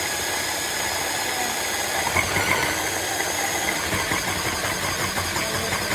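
Electric blender running steadily, grinding a packed jar of tomatoes and coriander into chutney.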